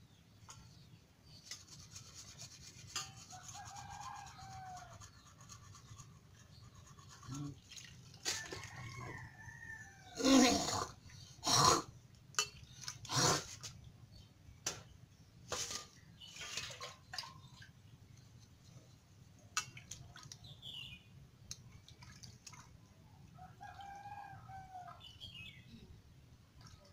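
Chickens calling in the background, with a rooster crowing, over small rubbing and scraping as fish pieces are cleaned by hand in a steel bowl of water. A few loud sharp knocks or clatters come in the middle.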